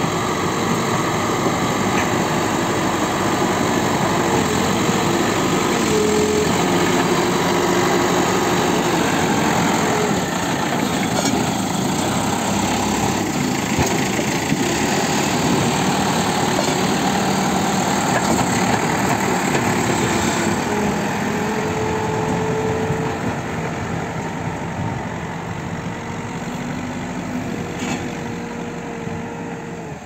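Diesel engine of a Case 770 backhoe loader running under load as it works its front bucket through dry soil, with a tractor engine running close by. The sound gets gradually quieter over the last several seconds.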